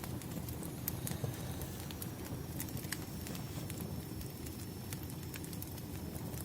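Wood fire burning: a steady low rumble of flames with irregular sharp crackles and pops of the firewood.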